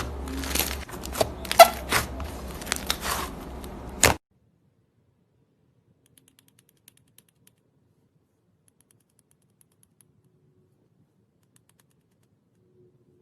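Slime being squeezed and pressed by hand, giving a run of crackling clicks and pops for about four seconds. The sound then cuts off suddenly to near silence.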